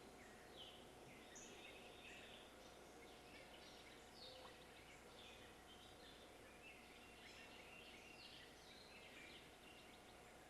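Faint outdoor birdsong: many birds chirping in short, scattered calls over a steady background hiss.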